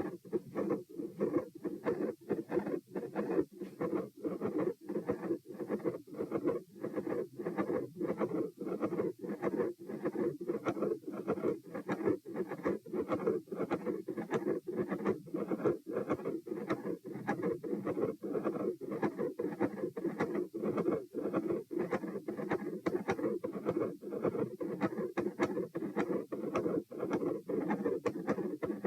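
Heartbeat heard through a stethoscope: regular heart sounds about twice a second over a continuous machinery murmur that does not stop between beats, the kind of murmur typical of a patent ductus arteriosus.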